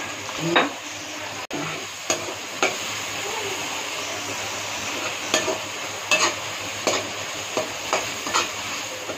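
Tomato, onion and spice masala sizzling in a metal karahi while a metal slotted spoon stirs it, scraping the pan in repeated strokes, about one every second; the masala is being fried down into a curry gravy base.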